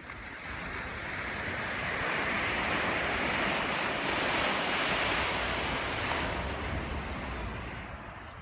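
Ocean surf: a wave breaking and rushing into whitewater. The rush swells over the first couple of seconds and fades near the end.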